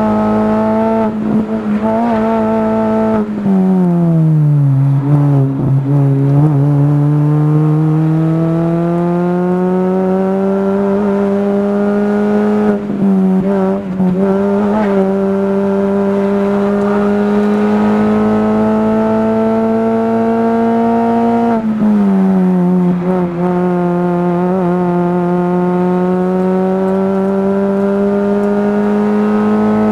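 Mini Cooper race car's engine heard from inside the cockpit, running hard. Its revs fall sharply about three to four seconds in, then climb slowly for several seconds. They hold fairly steady through the middle, fall again about twenty-two seconds in, and climb once more.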